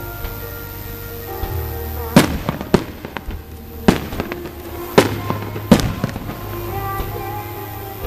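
Aerial firework shells bursting: five loud booms, starting about two seconds in and spaced half a second to a second apart, with smaller pops and crackles between them. Music with held notes plays underneath.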